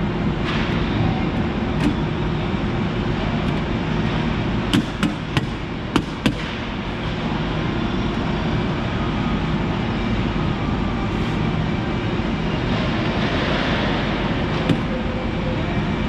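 Steady hum of industrial machinery with low droning tones. A few sharp clicks and taps of hand work on metal come about five to six seconds in, with one more near the end.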